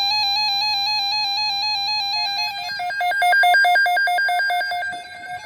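Several NOAA weather radio receivers sounding their electronic alert tones: rapid, stepped, beeping melodies that overlap one another, the receivers' signal that an alert, here a tornado watch, has come in. A second, faster pulsing warble joins about two and a half seconds in and is the loudest part.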